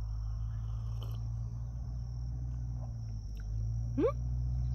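Steady high-pitched insect chirring over a low steady rumble. About four seconds in comes a short rising 'hm?' from a person.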